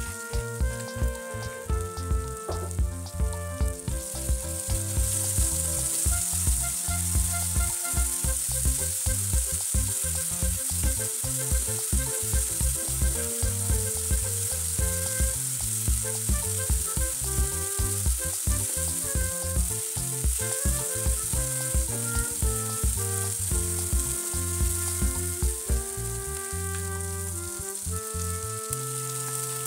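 Ground chili paste frying in hot oil in a wok, with a steady sizzle that swells about four seconds in and keeps going. Background music with a steady beat plays throughout.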